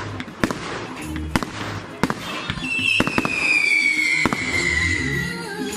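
Fireworks going off: a string of sharp bangs and crackles, with a long whistle falling slowly in pitch from about halfway through to near the end.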